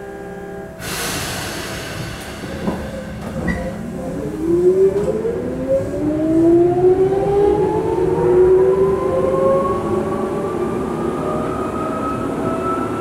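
Tokyu 8500 series electric train pulling away, heard from inside the car: a sudden hiss about a second in, then the traction motors' whine rising steadily in pitch as the train gathers speed.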